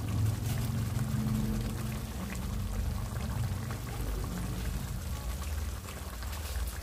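Thick pepper sauce with palm oil simmering in a large pot, bubbling and popping softly, over a steady low hum.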